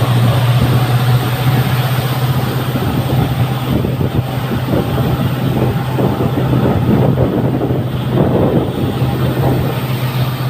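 EMD WDP-4D diesel locomotive's two-stroke V16 engine giving a steady low hum as the train runs under power, over a continuous rumble of wheels on rail.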